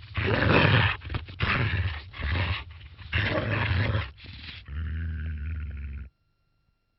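Three harsh, bark-like animal calls, each about a second long, then a steadier rasping sound that cuts off abruptly about six seconds in.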